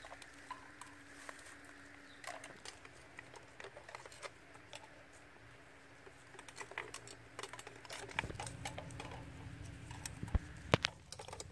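Stuffed snail shells set one by one onto a wire grill rack with metal tongs: scattered light clicks and taps, growing more frequent, with two sharper clicks near the end.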